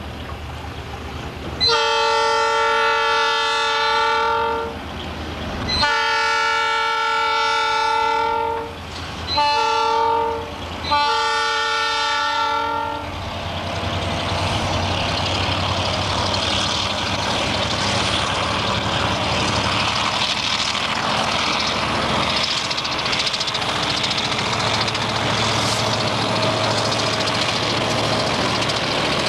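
Train locomotive air horn sounding four chord blasts, long, long, short, long, over about the first thirteen seconds. The train then runs past with a steady rumble and clatter of wheels on the rails.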